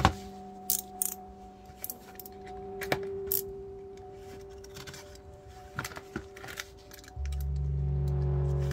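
A small box being handled and slit open with a small blade: sharp clicks and light taps, the loudest right at the start, over soft background music whose deep bass comes in about seven seconds in.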